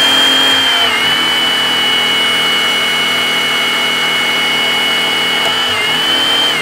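Motor-driven hydraulic torque-wrench pump running under load as it pressurizes an Enerpac S1500X hydraulic torque wrench toward a 4,000 PSI starting pressure, a steady whine. Its pitch dips slightly about a second in as the load comes on, rises again near the end, then starts to wind down at the very end.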